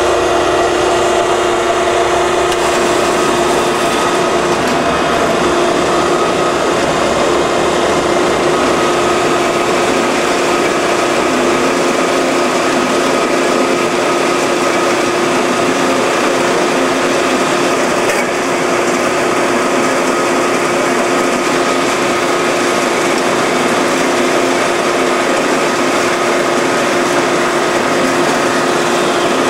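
Kalamazoo AH9AW automatic horizontal band saw running dry, its main drive and hydraulic motor going steadily with a held hum under the rasp of the blade cutting round steel bar. A low rumble drops away about twelve seconds in.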